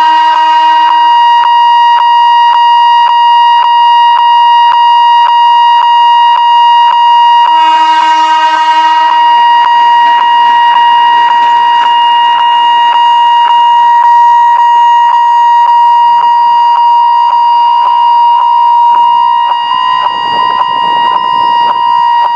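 Railway level-crossing warning signal ringing continuously in an even, repeating beat. A train's whistle sounds briefly at the start and again about eight seconds in, and from about ten seconds the noise of a train running past rises under the signal.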